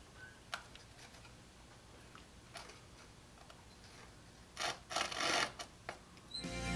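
Coping saw starting a cut in the thin wooden side of a cigar box: light ticks as the blade is set in the slot, then a few short sawing strokes about four and a half seconds in. Music comes in right at the end.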